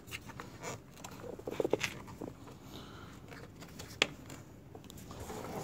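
Plastic tool-kit cover under a Kawasaki Vulcan 900's seat being handled and pressed down over a small amplifier: light scratchy rustling with a single sharp plastic click about four seconds in.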